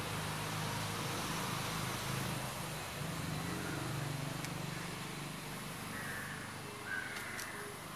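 Steady low hum of a motor vehicle engine running, with a brief tap about seven seconds in.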